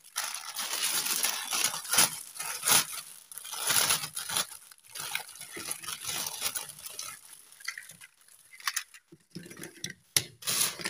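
Clear plastic packaging bag crinkling and rustling as it is handled and pulled open, in irregular bursts of crackle that are densest in the first half and thin out later.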